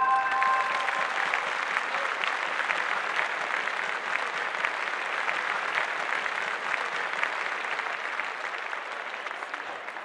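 Audience applauding, slowly dying down. The last notes of an intro music jingle ring out and fade in the first second.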